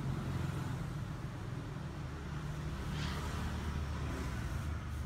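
Road traffic: a motor vehicle engine running with a steady low rumble, and a brief hiss about three seconds in.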